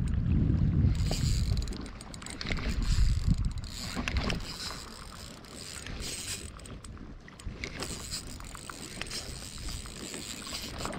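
Daiwa Fuego 3000 LT spinning reel being cranked against a hooked fish, its gears and bail giving a run of small clicks and ticks. Wind buffets the microphone for about the first two seconds, then dies down.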